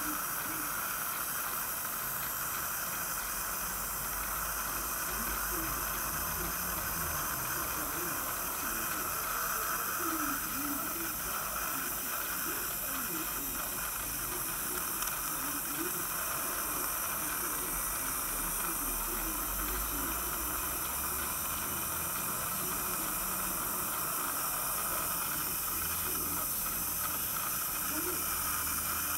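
Dental saliva ejector sucking air and saliva in the patient's mouth, a steady unbroken hiss.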